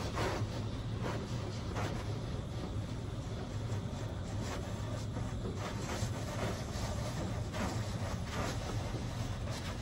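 HydroSpray Rainmaker touch-free car wash jets spraying water over the car, heard from inside the cabin: a steady low hum under a hiss of spray that swells and fades repeatedly as the jets pass over the car.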